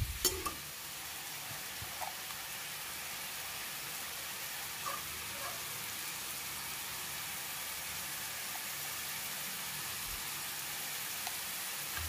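Cauliflower and spiced masala sizzling gently in an oiled kadhai, an even, steady hiss as the little water in the masala cooks off.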